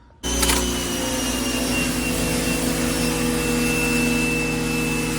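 Electric pressure washer, motor and pump starting suddenly as the trigger is pulled, then running steadily with water spraying: a loud, even hiss over a steady motor hum.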